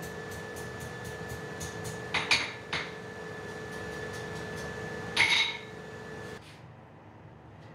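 Sharp metallic clinks of iron and blacksmithing tools, a few around two seconds in and a louder cluster a little after five seconds, over a steady machine hum with a high whine that stops about six seconds in.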